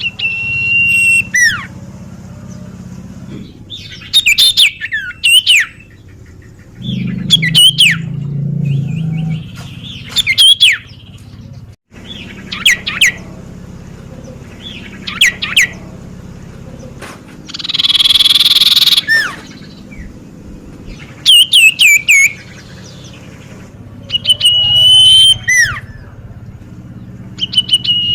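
Common iora calling repeatedly: long held whistles that end in a falling note, alternating with quick runs of sharply down-slurred notes, every couple of seconds.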